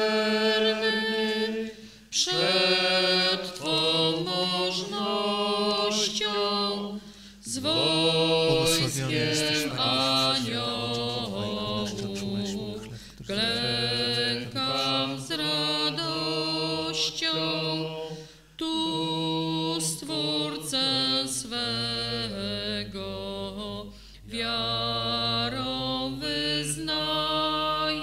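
A Polish Catholic hymn sung slowly in unaccompanied phrases a few seconds long, with short breaks between them.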